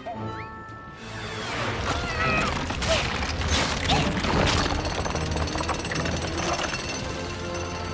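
Cartoon rock-smashing and rockslide sound effects: rocks crashing and rumbling in a rapid run of impacts as a huge boulder is smashed apart, over background music.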